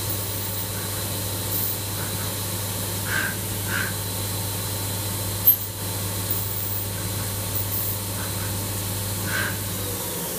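CNC milling machine face-milling a thin, flat steel plate under flood coolant: a steady hum from the cutting spindle with coolant spray hissing, a few brief higher squeaks from the cut, and one sharp click about halfway through. The hum stops just before the end.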